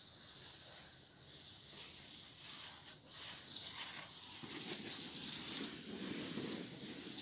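Ski edges scraping and hissing on packed snow as skiers make short turns, getting louder over the second half as they come nearer.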